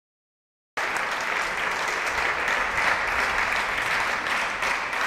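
Audience clapping, cutting in suddenly about a second in and holding steady.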